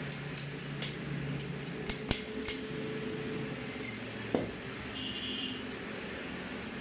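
Metal tools and parts clinking and tapping against each other, several sharp clicks in the first few seconds and one more knock after a pause, over a steady low hum.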